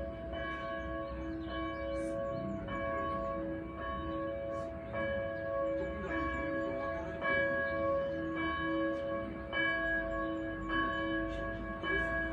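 Church bell ringing at a steady pace, one stroke about every 1.2 seconds, each stroke's hum ringing on under the next.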